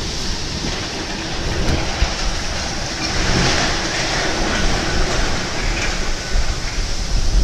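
Violent storm wind blowing in strong gusts, a steady rushing noise with a low rumble underneath.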